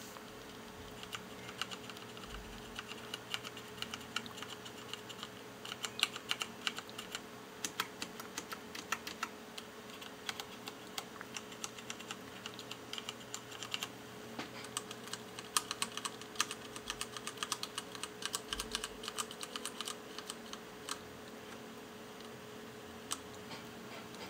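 Typing on a mechanical keyboard with Cherry MX switches: key strokes in quick, irregular runs. They stop about 21 seconds in, with one more stroke near the end, and a faint steady hum sits underneath.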